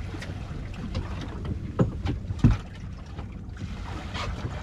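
Small fishing boat at sea: a steady low hum with wind on the microphone, and two dull knocks about two seconds in, under a second apart.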